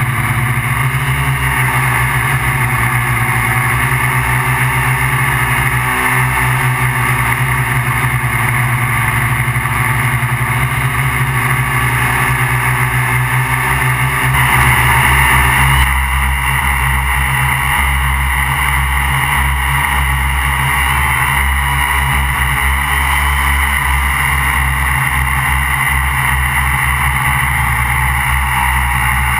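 MikroKopter QuadroKopter XL's electric motors and propellers humming steadily in flight, heard close up from the onboard camera. Briefly louder about halfway through, then the pitch of the hum shifts.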